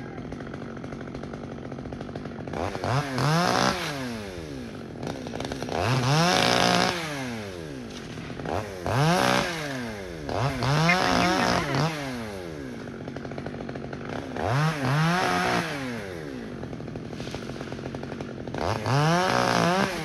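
Chainsaw engine revving up from idle about six times, each burst a rising whine held for a second or two before dropping back to idle, as it cuts into eucalyptus branches.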